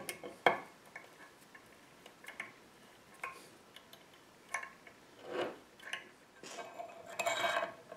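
Light metallic clicks and ticks of a hand tap in a tap wrench being worked in a hole in a metal plate, with a longer scraping sound near the end.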